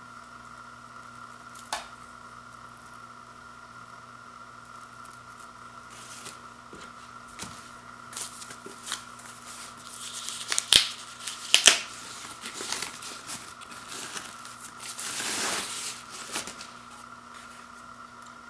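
Protective wrapping sheet rustling, crinkling and tearing as it is peeled off a small bookshelf speaker by hand, with a few sharp crackles about halfway through and a longer swish as the wrap comes away. A faint steady hum runs underneath.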